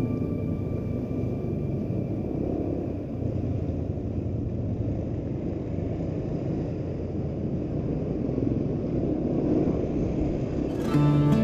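Steady low rumble of a motorcycle ride, wind and engine noise on the rider's camera microphone with no clear engine note. Guitar music comes in near the end.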